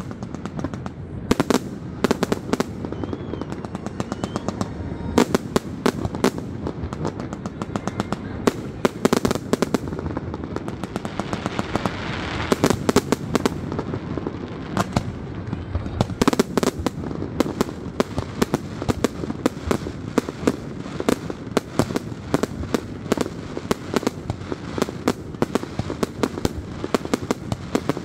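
Fireworks display: aerial shells bursting overhead in a rapid, unbroken string of bangs and crackles.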